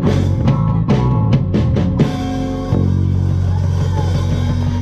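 Live blues trio of upright bass, drum kit and guitar playing the closing bars of a song: about two seconds of struck and strummed notes, then a chord held ringing out.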